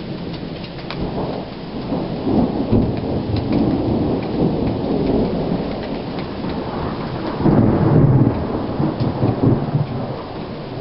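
Rolling thunder from a nearby lightning storm: a long low rumble that swells from about two seconds in and is loudest late on, over steady rain with drops ticking close by.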